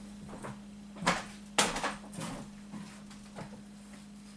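Kitchen handling sounds: two sharp knocks about a second and a second and a half in, then a few lighter clicks, over a faint steady hum.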